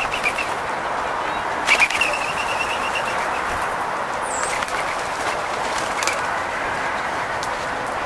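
Eurasian collared doves taking off from a wooden picnic table, a burst of wing flapping loudest about two seconds in, over a steady background hiss.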